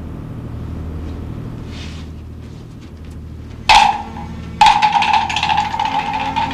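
Film soundtrack music: a low steady drone, then, a little past halfway, loud percussion starts suddenly, a struck ringing tone followed by quick strikes.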